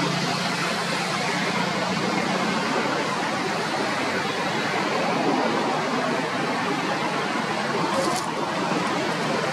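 Steady rushing outdoor background noise, with a brief faint click about eight seconds in.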